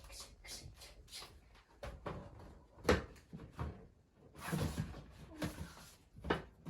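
A hardcover picture book being shaken and handled: irregular knocks and clicks with some rustling, the sharpest knocks about three seconds in and near the end.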